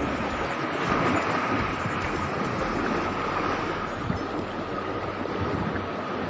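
Sea surf washing against a rocky shore, with wind buffeting the microphone. A thin, steady high tone runs underneath.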